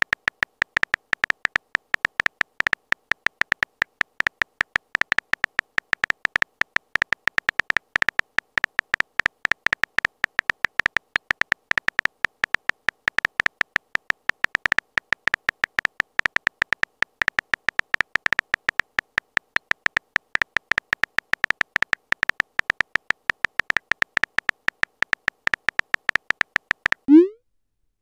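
Texting-app typing sound effect: a rapid, unbroken run of short high electronic blips, one per letter as the message is typed out. Near the end comes a single louder short rising swoosh, the message-sent sound.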